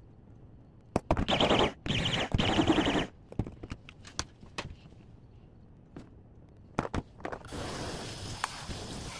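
Braun MultiQuick 5 hand blender pulsed twice in a cup of soapy water, about a second each, churning the detergent water to clean the blade. Scattered clicks and knocks follow, and a steady rushing noise starts near the end.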